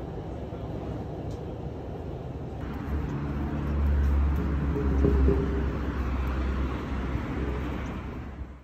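Steady rumble of a subway train running, heard from inside the carriage. From about two and a half seconds in, this changes to street traffic, with a vehicle's engine passing close and loudest around the middle, before the sound fades out at the very end.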